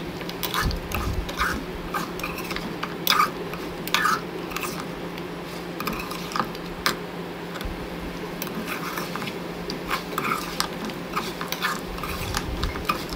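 A metal spatula scraping and knocking against an aluminium cooking pot as chunks of bone-in mutton are stirred and turned, the meat frying in its own fat with the water nearly cooked off. The scrapes and clicks come irregularly, over a low steady hum.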